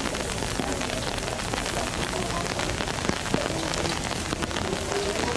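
Steady rain falling on wet ground and leaves, a constant hiss with many sharp individual drop hits.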